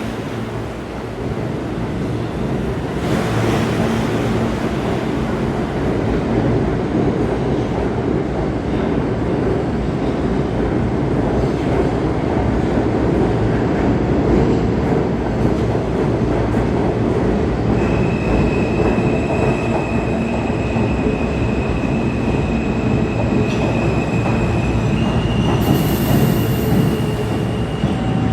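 New York City Subway R160 train running on the rails with a loud, steady rumble. Steady wheel squeal comes in over the rumble a little past the middle, then changes to a higher pitch near the end.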